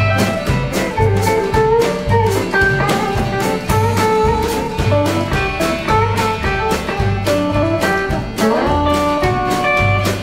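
Country band playing an instrumental break: a picked electric guitar lead over a steady two-beat rhythm with a pulsing bass line and strummed rhythm guitar.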